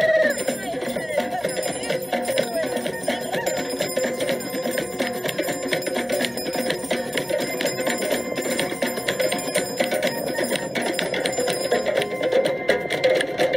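Drum circle: many hand drums and percussion played together in a fast, continuous rhythm, with bell-like ringing over the drumming.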